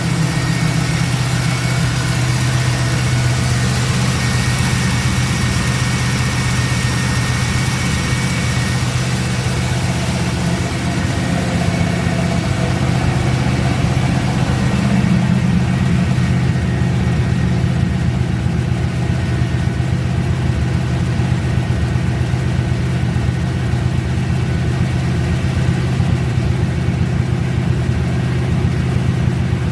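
Car engine idling steadily, running just after starting on the first try despite having sat dead for a couple of days.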